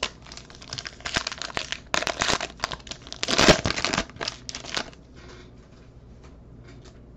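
Foil wrapper of a 2020 Panini Prizm baseball card pack being torn open and crinkled in the hands, loudest about three and a half seconds in. The crinkling stops after about five seconds, leaving only a few faint clicks.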